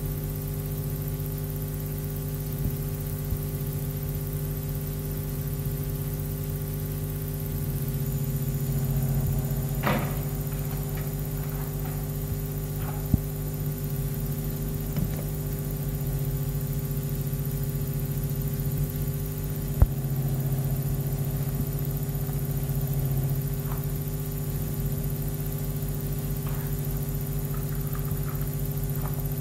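Steady electrical hum with a few sharp clicks and faint crackles, the loudest clicks about thirteen and twenty seconds in.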